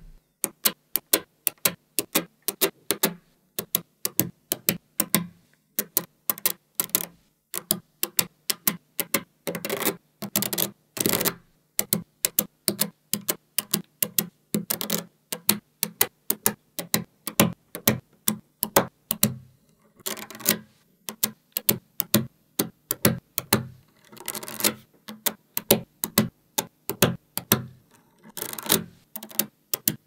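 Small neodymium magnet balls clicking as they snap onto a block built of magnet balls: sharp, irregular clicks several times a second, with a few brief stretches of rattling as strips of balls are handled.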